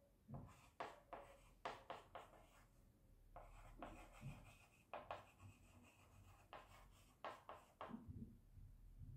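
Chalk writing on a small blackboard: faint runs of short scratching strokes and taps, with a brief pause about three seconds in, stopping about eight seconds in.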